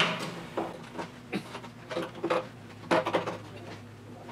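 Irregular metallic clicks, taps and scrapes of a hand tool working at a bent, grease-covered mount on a Triumph TR6's steel chassis frame.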